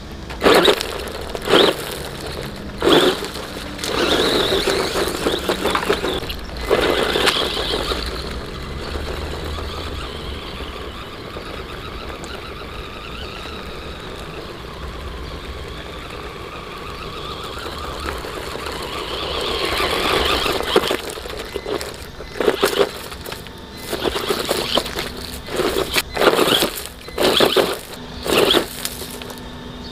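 Electric RC off-road buggy driven over gravel and loose stones, its motor whining and its tyres crunching on the stones in short bursts as it accelerates in spurts. It fades while the buggy is far off, then grows louder again as it comes back.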